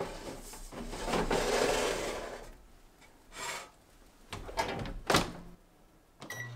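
Sharp Healsio oven being loaded: a metal baking sheet carrying a chiffon cake pan scrapes as it slides into the oven, then a few knocks and the oven door shutting with a thump about five seconds in. A short beep from the control panel follows near the end as the timer is set.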